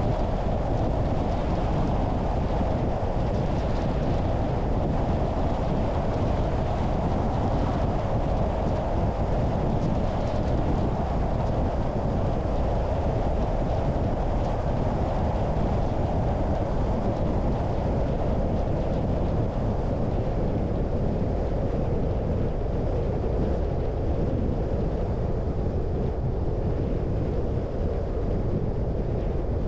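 Car driving along: a steady rush of road and wind noise that holds even throughout.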